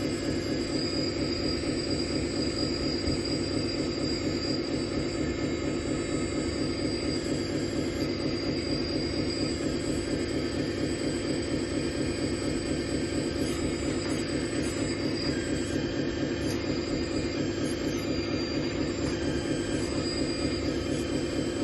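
Electric hydraulic pump of a scale RC crane hooklift truck running steadily while the truck's loader crane is worked.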